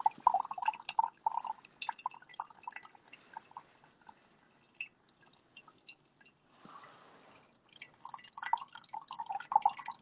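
Coffee brewing drop by drop: liquid dripping in quick, irregular plinks, thinning out in the middle and picking up again near the end. A brief soft hiss comes about seven seconds in.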